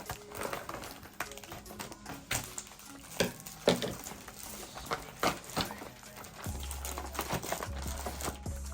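Background music, with a deep bass tone coming in about six and a half seconds in, over irregular crinkling and tapping of plastic MRE packaging being handled.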